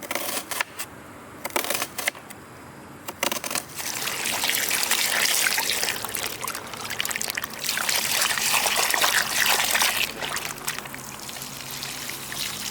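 A few sharp knocks, then water pouring and splashing, heaviest in the middle and easing to a softer trickle near the end.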